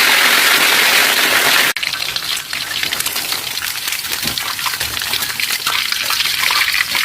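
A steady rush like running water, which cuts off suddenly after about two seconds. It is followed by hot oil crackling and sizzling with many small pops, as in frying.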